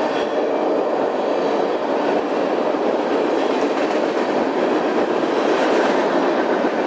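Freight train of fully loaded liquefied-petroleum-gas tank cars rolling past: a steady noise of wheels running on the rails.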